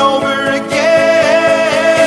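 Background music: a melodic track with a note held from about a third of the way in.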